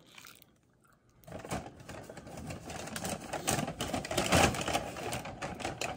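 Close handling noise: rapid, irregular clicks and rustling, like paper or packaging and objects being moved near the microphone, starting about a second in after a brief hush.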